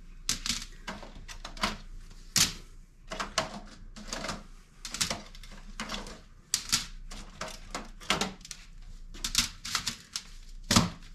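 Metal grease filters being unclipped and pulled out of a range hood: a run of irregular clicks, knocks and rattles, with a few louder clanks.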